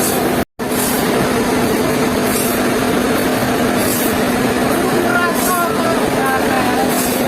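Sawmill machinery running steadily with a low hum, briefly cutting to silence about half a second in.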